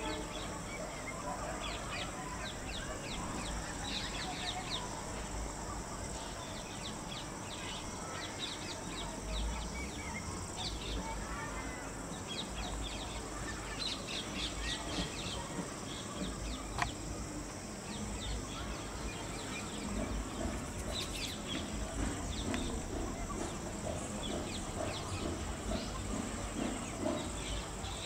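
Outdoor ambience: many short bird chirps and calls throughout, over a steady high hiss and a low rumble.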